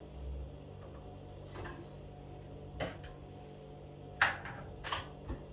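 A few short knocks and clatters of kitchen items being handled, the loudest about four seconds in, over a low steady hum.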